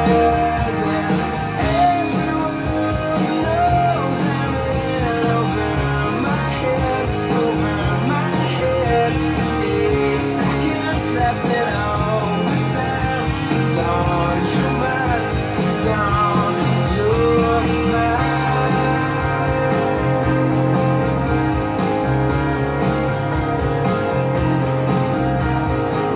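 Guitar-led song with a steady beat, played back from a Type II cassette recorded with Dolby C noise reduction on a serviced Nakamichi Cassette Deck 2.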